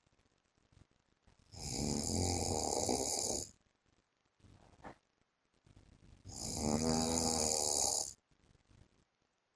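A sleeping man snoring: two snores, each about two seconds long, the second starting about four and a half seconds after the first.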